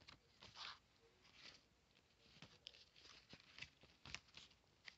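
Faint rustling and light clicks as a paper booklet is handled and its pages turned inside a plastic Blu-ray case.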